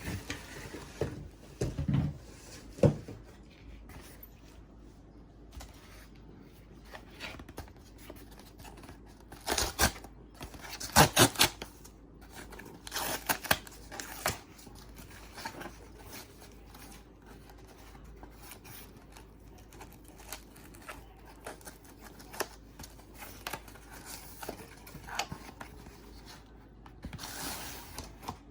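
Packaging of a vinyl record being opened by hand: scattered cutting, tearing and crinkling of the wrapping, with a few soft knocks from handling. The loudest is a quick run of sharp rasping strokes about ten to eleven seconds in.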